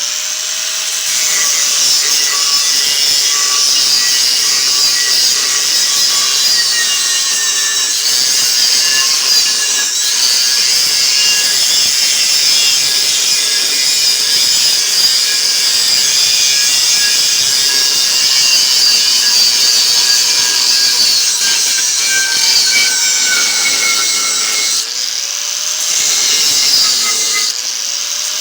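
Angle grinder with a worn cut-off disc cutting through the steel shell of a refrigerator compressor, a steady high grinding as the disc is worked back and forth in the cut. About 25 seconds in, the grinding lets up briefly and the motor spins back up before the cut resumes.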